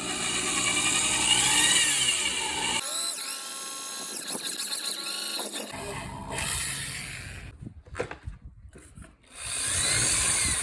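Handheld power tool running in several separate bursts, its whine rising and falling in pitch as the speed changes, with abrupt breaks between bursts and a few sharp clicks in the gap.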